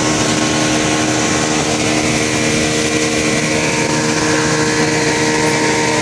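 A speedboat's engine running steadily at speed with a constant drone, over the rush of churning water and wind as the hull cuts through the river.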